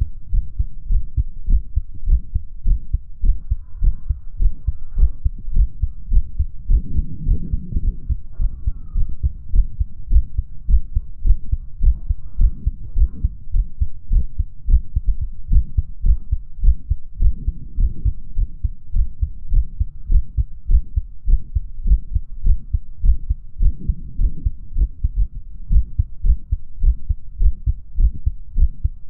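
A human heartbeat, slow at rest with occasional skipped beats, heard as repeated low, muffled thumps through a hoodie and shirt. A faint heart murmur is present.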